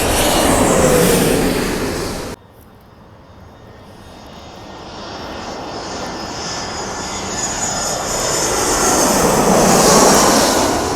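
Jet airliner's engines passing close overhead on landing approach, the roar falling in pitch as it goes by and cutting off suddenly about two seconds in. Another airliner's engine roar, with a high whine, then builds steadily to its loudest near the end.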